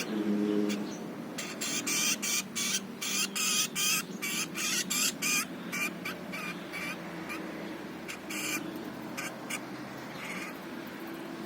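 Canaries chirping in a quick run of short, sharp notes, about four a second, then fewer and fainter chirps toward the end.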